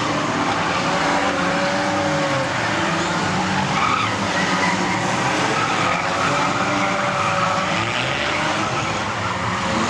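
Several mini stock race cars running flat out around a small track, their engines rising and falling in pitch as they lap, with tyres squealing and skidding through the turns.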